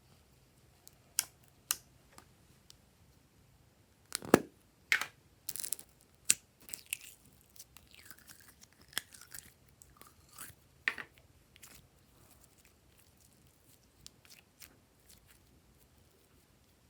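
Glossy slime being mixed and pressed, making sticky clicks, pops and crackles. These are sparse at first, busiest from about four to eleven seconds in, then thin out to a few faint clicks.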